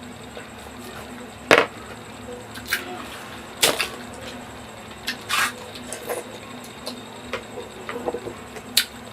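Rambutan being peeled and eaten close to the microphone: scattered sharp crackles and wet clicks of rind and flesh. The loudest comes about one and a half seconds in. A faint steady hum runs underneath.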